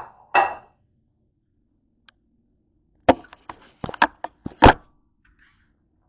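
A plate knocked down onto a countertop twice in quick succession, then a quick run of about seven sharp knocks and clatters starting about three seconds in, the last the loudest.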